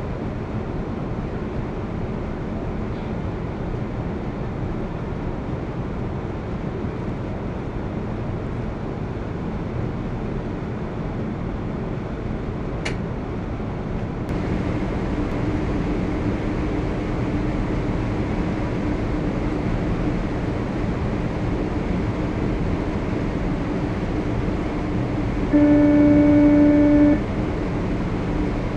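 Steady in-flight aircraft cabin noise: a constant rush of engines and airflow, with a low hum joining about halfway. Near the end a loud steady tone sounds for about a second and a half.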